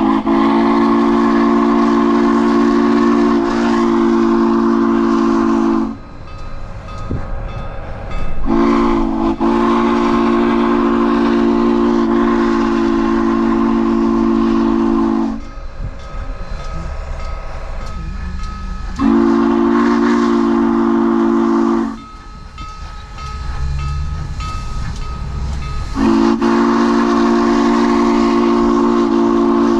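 Steam locomotive No. 148's whistle blowing the grade-crossing signal: two long blasts, a short one, and a last long blast starting about four seconds before the end, several tones sounding together. A quieter rumble fills the gaps between blasts.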